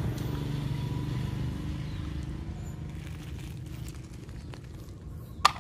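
Low, steady background rumble that slowly fades, then two sharp clicks near the end as a plastic toy bus is handled.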